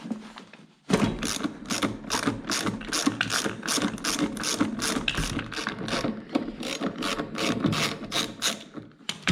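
A ratchet wrench with a 17 mm socket clicking rapidly and steadily as it spins the wheel nut off a riding lawn mower's wheel. It starts about a second in and stops just before the end.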